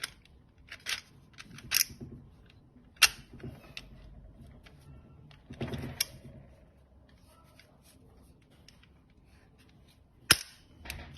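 Clicks and clacks of a classroom mortise lock being handled, its two-part spindle and split follower moved about: a handful of sharp separate clicks with a quiet pause before a loud one near the end.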